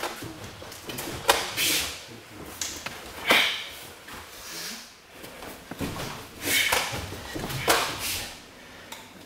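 Nunchaku swung and caught during a kata: a string of quick swishes and sharp slaps, about nine in all, in two uneven bursts with a short lull between them.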